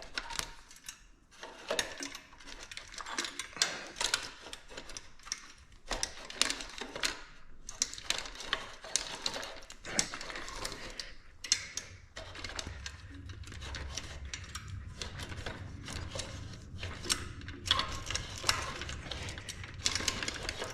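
Engine hoist being worked by hand: irregular metal clicks and clacks, a few a second, from a hoist whose handle keeps coming loose. A low hum comes in about twelve seconds in.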